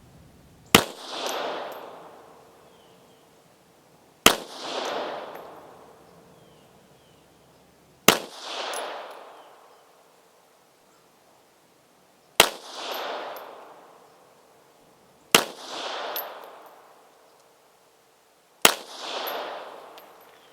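Astra 300 pistol in .380 ACP fired six times, single shots three to four seconds apart, each sharp crack followed by a long rolling echo.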